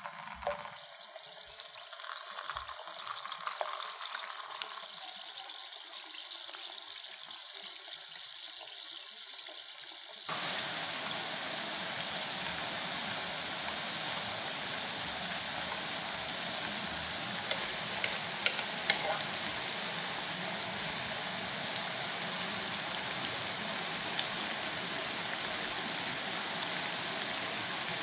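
Potato-and-corn balls deep-frying in hot oil in a pan: a soft sizzle at first, then about ten seconds in a loud, steady frying sizzle of vigorously bubbling oil. A few light clicks come through in the middle.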